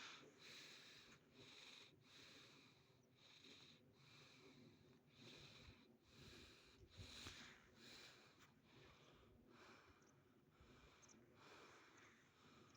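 Near silence, with a faint hiss that comes and goes in short pulses about every half second to a second.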